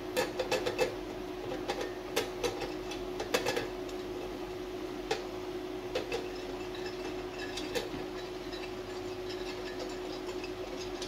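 Light, irregular clicks and taps of an oil brush against an aluminium idli plate as oil is brushed into its cups, over a steady low hum.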